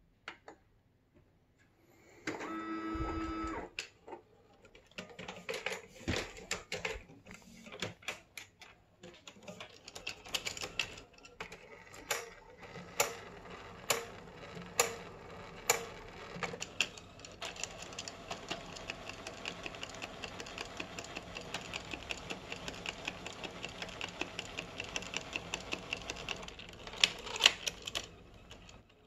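Canon PIXMA MX870 inkjet printer's internal mechanism cycling, as the print-head carriage travels and the cap-and-wiper maintenance station works. A short motor whine comes a couple of seconds in, then a run of clicks and brief motor runs, then a long stretch of fast, even mechanical ticking over a low hum. Near the end come two louder clacks.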